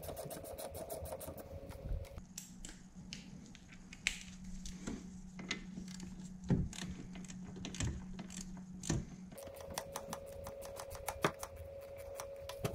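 Ratchet wrench with a 10 mm socket loosening the bolts of intercooler-pipe hose clamps. Its pawl clicks in quick even runs at the start and again near the end, with slower scattered clicks in between.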